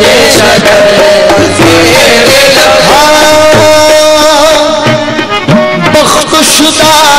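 Instrumental passage of qawwali devotional music: a held harmonium melody over tabla drumming, with long sustained notes from about three seconds in.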